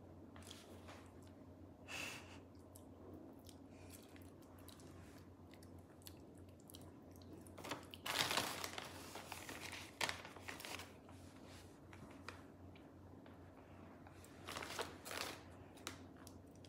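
Plastic bag of shredded cheese crinkling in short, scattered rustles as handfuls are pulled out, the loudest about eight seconds in.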